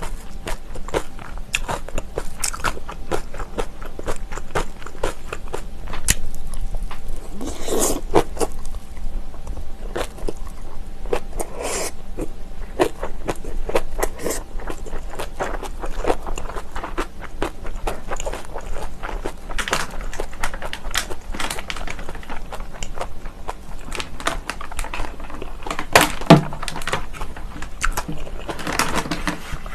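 Close-miked eating: crunchy biting and chewing of kimchi, with a dense run of small crackles and clicks and a few louder crunches.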